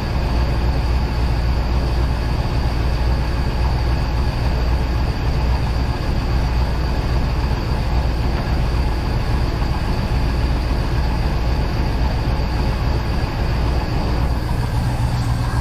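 Inboard boat engine idling steadily, with a knock in the starboard engine that the owner takes for a rod knock, though it could just be a lifter.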